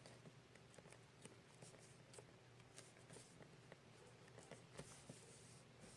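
Near silence with faint, scattered small clicks and ticks of slime putty being stretched and handled.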